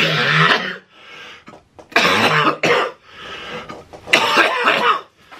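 A man coughing in three loud, hacking fits about two seconds apart, with breathy hissing between them, while wearing a nasal CPAP mask.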